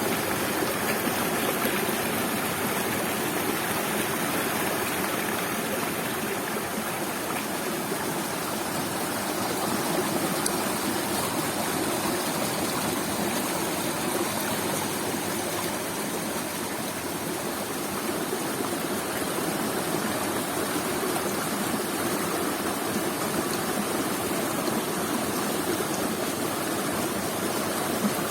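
Waterfall and stream water rushing steadily, an even splashing roar of falling and flowing water.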